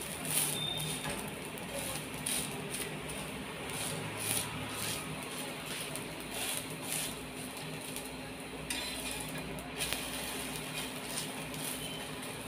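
A steel spatula scrapes and taps against a flat iron tawa while sabudana thalipeeth is pressed and turned on it. The light scrapes come every second or two over a steady hiss.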